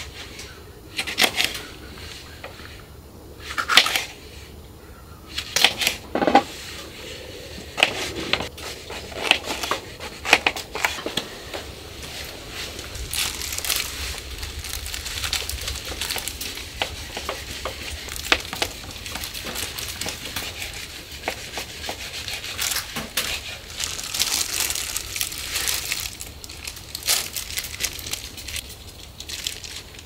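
A knife knocking on a wooden cutting board a few times in the first seconds. Then a thin plastic food glove rustles and crinkles while raw beef is handled, cut and pushed onto wooden skewers.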